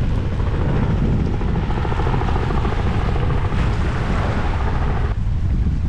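Strong wind buffeting the camera microphone, a steady low rumble, with a higher hiss of water on the reef that cuts off about five seconds in.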